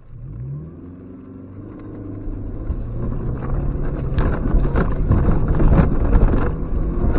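Suzuki X-90's engine revving as the car pulls away, then working hard as it climbs a rough, muddy track. From about two and a half seconds in, it grows louder, with repeated knocks and thumps from the wheels and suspension over the rocky ground.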